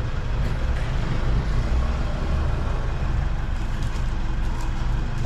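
Steady low rumble of a motor vehicle engine running close by.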